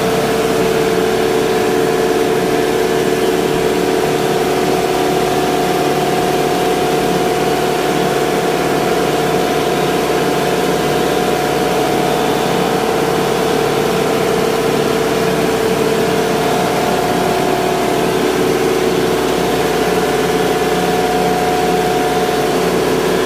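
Ice-plant machinery running: a large industrial electric motor turning a belt drive behind a mesh guard, giving a loud, unchanging machine hum with two steady pitched tones.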